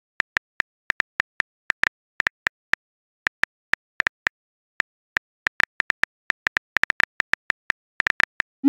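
Smartphone keyboard key clicks as a message is typed, short sharp taps at an irregular pace of about three or four a second. A rising swoosh begins right at the end as the message is sent.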